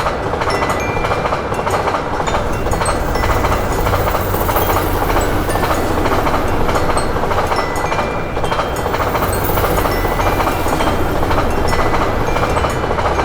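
A train passing over a level crossing: a steady, loud rumble of wheels on rails that sets in abruptly. The crossing's warning bell keeps sounding in short high tones over it.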